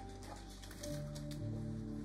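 Soft background music with held notes that change about a second in, over faint light clicks and rustles of a metal spoon against a plastic sauce pouch.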